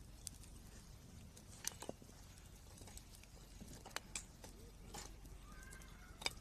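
Wood campfire crackling: scattered sharp pops and snaps at irregular intervals, the loudest near the end.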